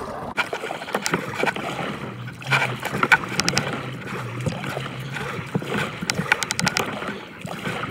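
Water splashing and sloshing around a kayak, with scattered knocks and clicks and a quick run of clicks about six seconds in.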